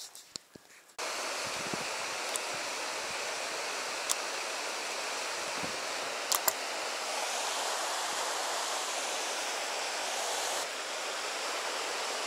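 Steady rush of a river running over rapids, starting abruptly about a second in. A few sharp clicks sound above it, including a quick pair a little past halfway.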